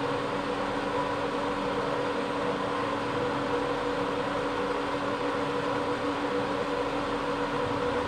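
Cooling fan inside a Butterfly Rapid Plus induction cooktop running steadily after cooking has finished, a whir of air with a low hum. The cooktop's electronics have already switched off, and the fan is running on to blow the built-up heat out from under the hob.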